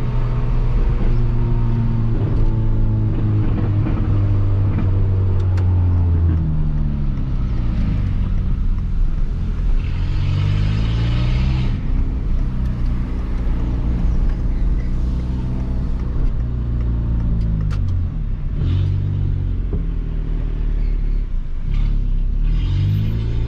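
Peugeot 206 1.4 four-cylinder engine running through a straight-pipe exhaust with no muffler while driving. It holds a steady note at first, then its pitch falls and rises several times as the car slows, shifts and accelerates again.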